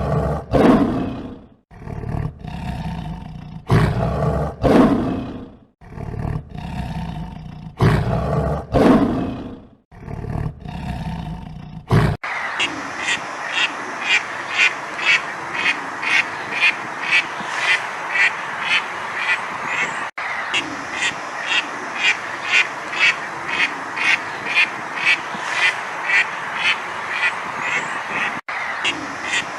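A lion roaring in a series of deep calls about a second long each. About twelve seconds in it cuts abruptly to ducks quacking in a steady run of roughly two quacks a second.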